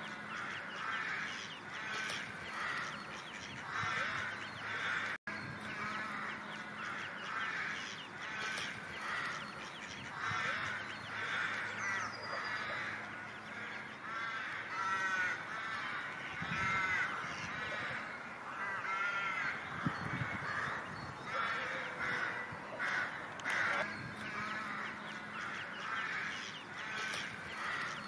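A group of ducks calling continuously, many short quacking calls overlapping one after another, with a brief dropout about five seconds in.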